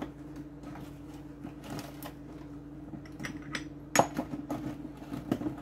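Spice containers being handled at the pot: light taps and small clicks, with one sharper click about four seconds in, over a steady low hum.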